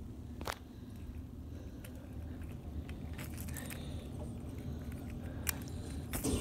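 Steady low hum with scattered small clicks and rattles. Toward the end these come from a hand gripping and pushing a small die-cast toy car across shag carpet.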